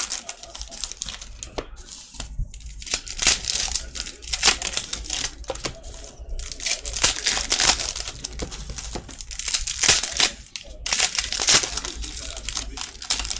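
Foil wrappers of Panini Court Kings basketball card packs crinkling and tearing as they are ripped open by hand, in uneven spells of crackling with short lulls.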